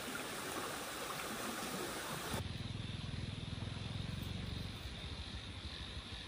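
Steady hiss of outdoor field ambience beside a swollen river. About two and a half seconds in, it switches abruptly to a low rumble of wind buffeting the microphone.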